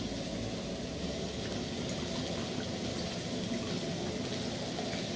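Rice toasting in oil in a stainless steel pan, giving a steady sizzle, while liquid is poured from a bottle into a small copper cup.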